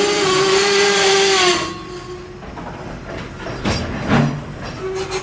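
Container wagons of a freight train rolling past on the rails: loud wheel-and-rail noise with several high ringing squeal tones that sink slightly in pitch, cutting off abruptly about 2 seconds in. A lower rumble follows, with a few sharp knocks of the wheels over rail joints.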